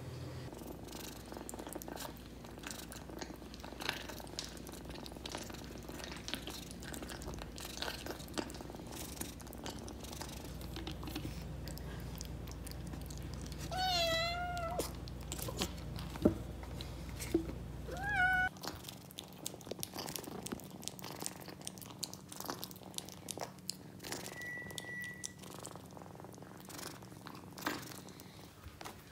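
A kitten meowing: one drawn-out meow about halfway through, a shorter one a few seconds later and another at the very end, among scattered small clicks and taps.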